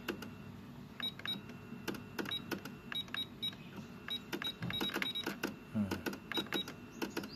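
Button clicks and short high beeps, many in pairs, from a Victor UX-Z11WMD micro component MD system as its tape buttons are pressed again and again, over the faint whirr and clicks of the cassette mechanism. The tape deck is failing to play, which the seller takes to mean it no longer reads tapes.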